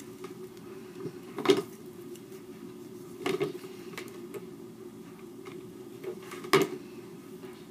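Hands handling a gum pack and foam craft pieces on a cutting mat: three sharp taps or clicks, over a steady low hum.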